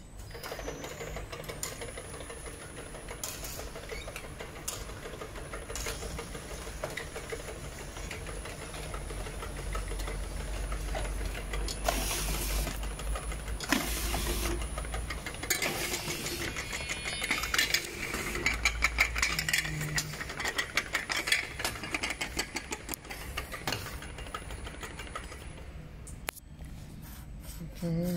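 Automatic round-jar labeling machine with turntable running: motors humming under a thin, steady high whine, with many small clicks and rattles as the glass jars move along the turntable and conveyor. The whine stops shortly before the end.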